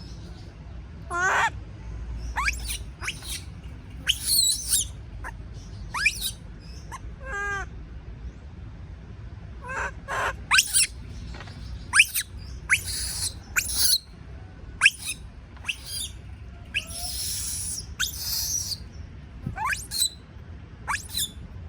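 Baby monkey crying out in repeated short, high-pitched calls, several sliding upward in pitch, with a few longer, harsher screams about two-thirds of the way through. These are fear calls of a young monkey frightened at being left alone.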